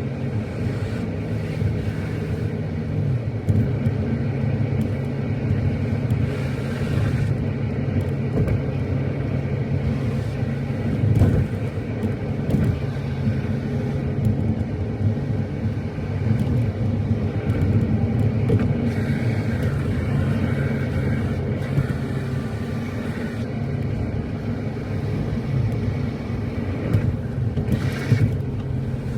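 A motor vehicle running steadily with continuous engine and road noise, as when driving along a road, with a few brief knocks along the way.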